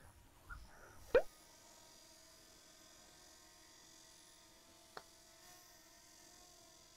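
Mostly quiet, with one short, sharp knock about a second in and a fainter click near five seconds.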